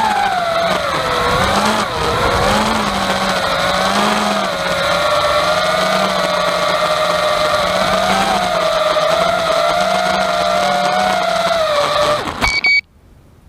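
FPV quadcopter's EMAX 2205 brushless motors and props whining, the pitch wavering up and down with throttle, picked up by the onboard camera's microphone, with a rattling noise that the owner cannot place and suspects is a loose mic inside the camera or cheap motors. The sound cuts off abruptly near the end.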